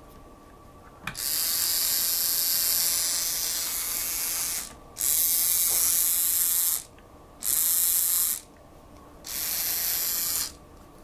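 LEGO 9V electric motor in a transparent case running with a high-pitched whirring buzz, switched on and off four times from the battery box: one run of about three and a half seconds, then three shorter ones.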